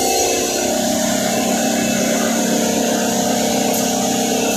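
Single-phase electric motor belt-driving a hammer-mill pulverizer, running at steady speed: an even hum with several held notes in it.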